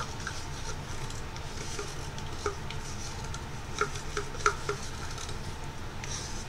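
Small clicks and taps of a wooden craft stick against a plastic cup as paint is stirred in it, with a short run of clicks about four seconds in, over a low steady hum.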